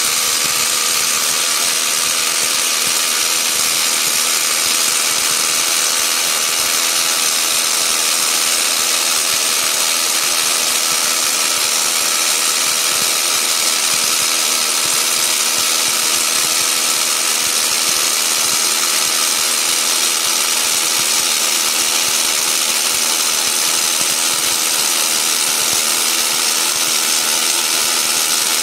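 A StoneTermite rock-drilling rig running, heard close to its body: a loud, steady mechanical noise that does not change.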